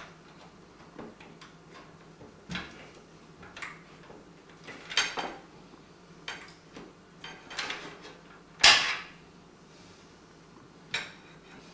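Scattered clicks and knocks of plastic and metal parts being handled and fitted inside a desktop PC case while drives and SATA cables are wired in, about ten in all, with a sharp knock about three-quarters of the way through.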